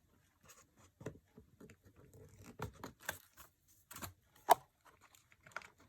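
Light scattered clicks and scrapes of hands freeing a plastic RC car chassis from its packaging and a thick zip tie, with one sharper click about four and a half seconds in.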